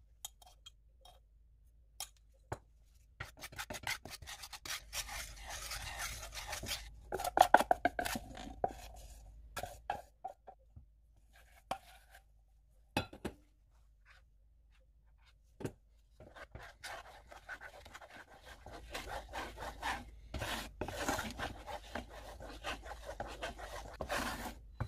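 A spatula stirring and scraping egg-yolk and milk custard around a pot in two long spells, with scattered taps and clinks of the utensils against the pot. The custard is being cooked as the base of an anglaise buttercream.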